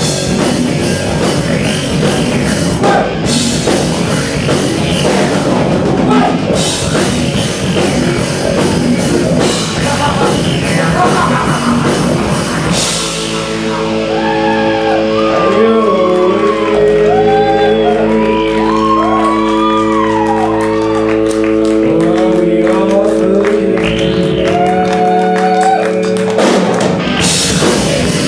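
Live rock band playing loud: electric guitars, bass and drum kit with crashing cymbals. About 13 seconds in the drums drop out and held guitar notes ring under a wavering melody line, until the full band comes back in near the end.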